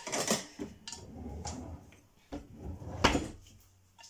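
A frying pan being got out and handled in a kitchen: scraping and a few knocks of cookware against the cupboard and hob, the loudest about three seconds in.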